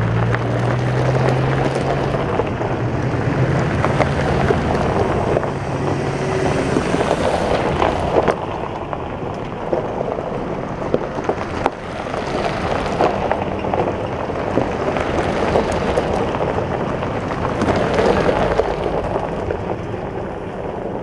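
4x4 vehicles driving slowly over a gravel track: a steady rush of tyres crunching on gravel and wind, with an engine hum that fades after the first several seconds.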